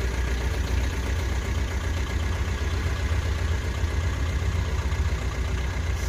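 Maruti Suzuki Swift turbo-diesel engine idling steadily, heard close to its exhaust tailpipe.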